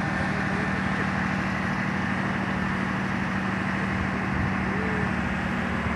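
A vehicle engine running steadily at an even speed, a constant low hum.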